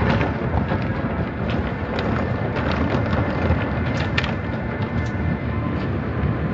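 Automatic car wash heard from inside the car: wash brushes and cloth strips scrubbing and slapping across the soapy windshield with water spraying. A steady heavy rumble with scattered sharp slaps.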